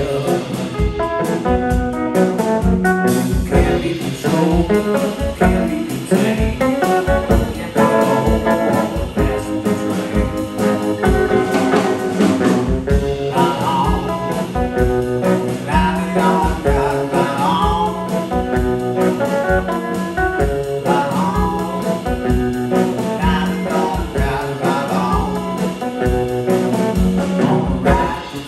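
A live blues band playing, with guitar over a steady beat of low drum hits about twice a second.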